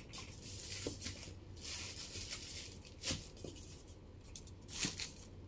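Soft rustling and handling noises, with a few light clicks, from hands working with modelling-paste materials at a work table.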